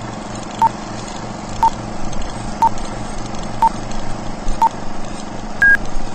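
Old-film countdown leader sound effect: five short beeps, one a second, over a steady hiss, then a longer, higher beep near the end as the count reaches zero.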